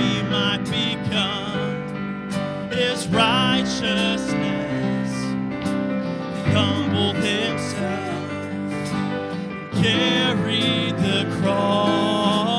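Live worship band playing an instrumental passage of sustained chords with guitar.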